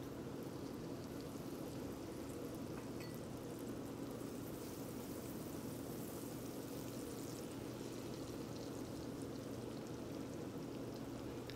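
Butter sizzling and crackling steadily as it melts in a hot stainless-steel saucepan, with a steady low hum underneath.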